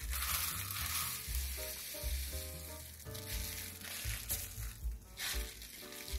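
Brown sugar pouring from a plastic bag into a plastic measuring cup with a grainy hiss, loudest in the first second. Background music with a steady bass beat plays under it.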